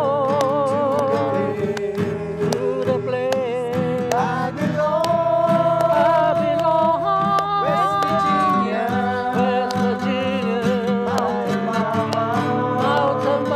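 Acoustic guitar strummed in a steady rhythm while a small group sings along, the voices held and wavering on long notes.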